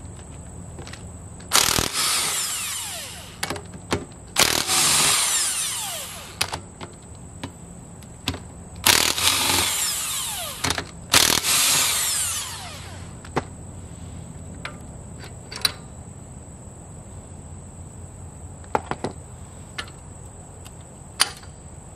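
Cordless power tool with a socket spinning out the carrier bearing cap bolts on a Dana 60 front axle, in four bursts of about two seconds each. After the last burst come a few light clicks of metal parts being handled.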